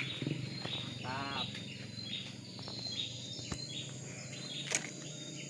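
Countryside wildlife ambience among trees: short high chirps repeating about twice a second, with one brief louder call about a second in. Two sharp clicks stand out, about three and a half seconds in and near the end.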